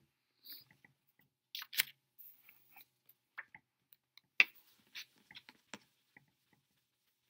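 Scattered taps, clicks and brief rustles from wiping a small whiteboard and swapping a paper word card, with one sharper click about four and a half seconds in.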